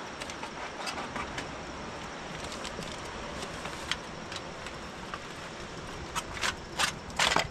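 Steady noise with scattered sharp clicks and knocks, and a run of louder knocks over the last second and a half.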